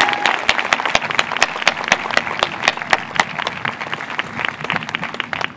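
Crowd applauding, with one person's sharp, distinct claps close to the microphone standing out over the massed clapping. The applause thins out near the end.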